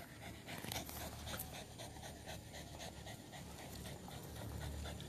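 A dog panting faintly in quick, even breaths, winded from running.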